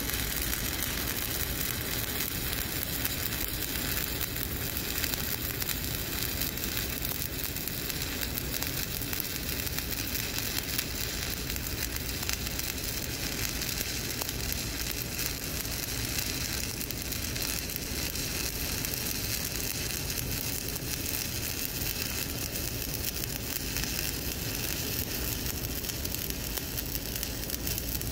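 Stick (shielded metal arc) welding with a 7018 electrode: the arc crackles and sizzles steadily as a fill pass is run in a horizontal groove weld.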